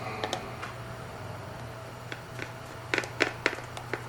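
Small screws being driven into the plastic housing of a Porsche 986/996 climate control panel: scattered light clicks and ticks of the screwdriver and parts, with a quick cluster of them about three seconds in, over a faint steady hum.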